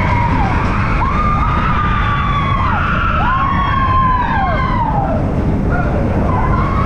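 Roller coaster riders screaming in long drawn-out cries, one after another, in the dark, over the steady low rumble of the moving coaster train.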